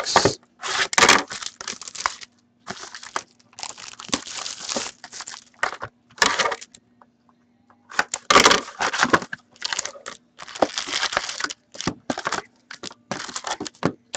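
A box of SPX hockey cards being torn open and unpacked: its wrapping and cardboard crinkle, crackle and rustle in irregular bursts, with short pauses. A faint steady hum runs underneath.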